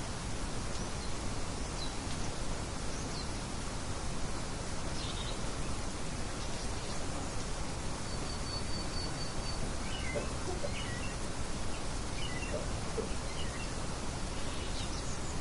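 Steady wind-like outdoor noise with faint birds chirping over it: scattered short chirps, and a quick trill of about six notes about eight seconds in.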